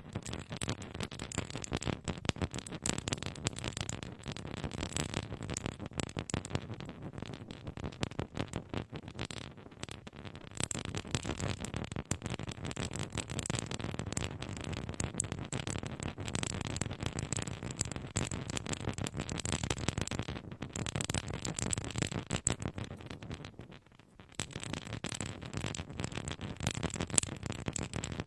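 Nail file scraped rapidly back and forth on a binaural microphone, a dense run of fine rasping strokes, with a brief pause a little before the end.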